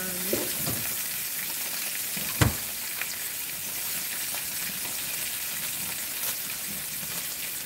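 Pan-fried snapper fillets and a pan of Brussels sprouts with apples sizzling steadily on the stove. A utensil stirring the sprouts makes a few small clicks against the pan, with one sharp knock about two and a half seconds in.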